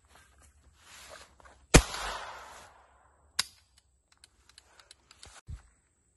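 An AR-15 with a CMMG .22 LR conversion kit fires a single .22 LR shot that rings on for about a second. A second, shorter crack follows about a second and a half later, then a few light clicks and a dull thump from handling the rifle.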